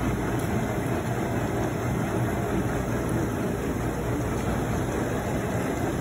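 Wascomat commercial front-load washing machine running steadily as its main wash begins, water flowing in through the detergent dispenser, with a constant low machine hum.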